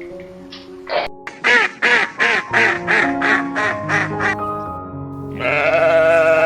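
A quick run of about ten quacks, then a long wavering bleat starting near the end, over background music.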